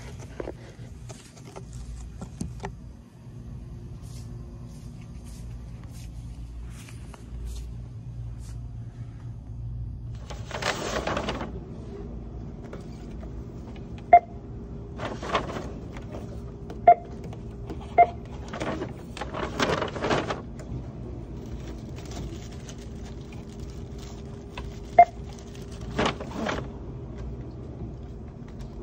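Checkout barcode scanner beeping four times, short sharp beeps spaced several seconds apart, over a steady low store hum. Paper rustling comes in bursts between the beeps as items are handled and bagged.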